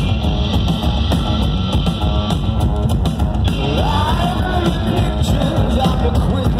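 Live rock band playing loud: electric guitars over a steady drum beat, heard from within the concert crowd.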